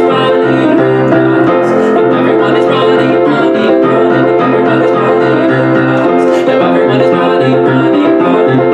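Grand piano played with many quick notes and chords, an instrumental passage with no voice.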